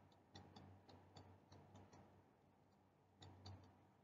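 Faint clicks of a stylus tapping on a tablet as words are handwritten: about a dozen small ticks, with a slightly louder cluster about three seconds in, over a faint low hum.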